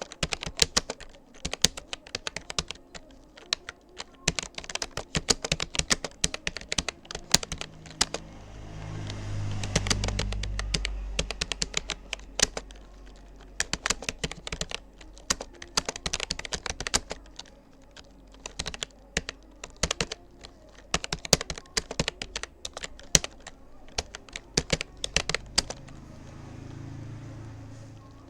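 Touch-typing on a Rapoo computer keyboard: a fast, uneven run of key clicks with a few brief pauses. A low hum swells and fades about a third of the way in.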